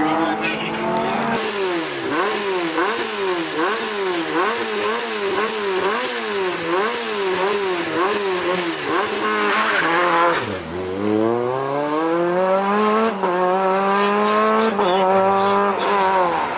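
Renault Clio rally car's engine held at the start line, revved up and down over and over, about one and a half swings a second. About ten seconds in, the revs drop and the car launches, the engine note climbing under full acceleration with two upshifts.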